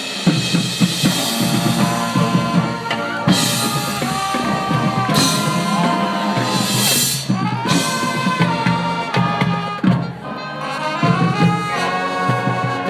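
Marching band playing: the brass section holds loud chords, some notes sliding in pitch in the middle, over drums and front-ensemble mallet percussion.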